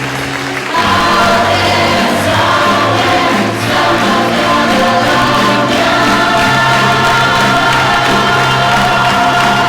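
Stage musical cast singing together in chorus with instrumental accompaniment, holding long notes; the ensemble comes in louder about a second in.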